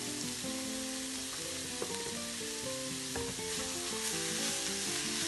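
Minced beef sizzling steadily as it fries in its own fat in a hot non-stick wok, stirred and scraped with a wooden spoon.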